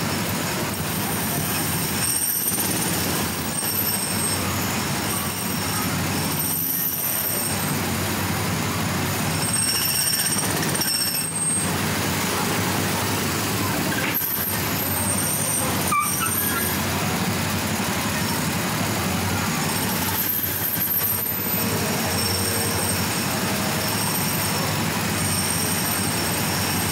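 Small gasoline engines of Autopia ride cars idling and creeping forward in a queue, a steady low running sound. Thin high-pitched tones come and go every few seconds over it.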